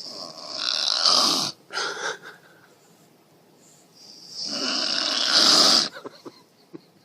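A woman snoring loudly: two long snores about four seconds apart, each building up over a second or more and then cutting off, with a shorter snorting sound just after the first.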